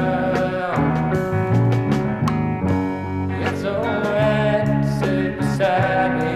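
Background music: a country song with singing over guitar.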